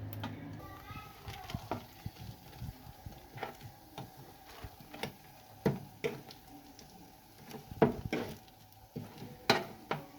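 Irregular knocks and clicks of kitchen utensils being handled, the loudest about six, eight and nine and a half seconds in.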